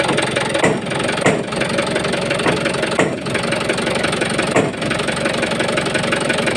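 Mitsubishi 4D34T four-cylinder turbo-diesel engine idling steadily, with a few sharp knocks at irregular spacing. The mechanic first took the knock for a worn connecting-rod bearing.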